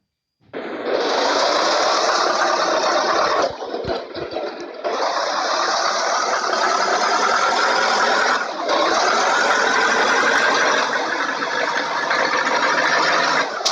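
Basuri telolet horn on a bus sounding three long blasts of about three to four seconds each. Each blast starts and stops abruptly, and the sound is harsh and noisy.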